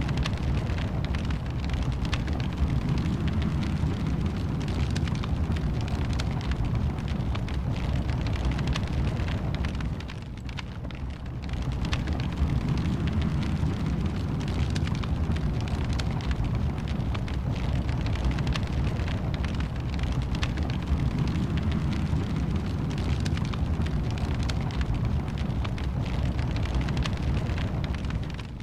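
Wood fire in a fireplace crackling, with many small sharp pops over a steady low rumble. The sound drops briefly about ten seconds in, then resumes.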